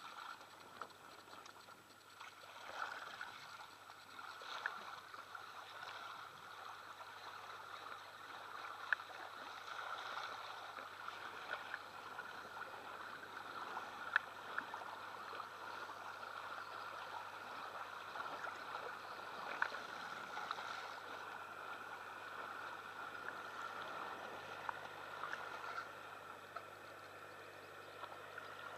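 Water splashing and lapping against the catamaran's pontoon hulls as a steady hiss, with a few sharp clicks scattered through it.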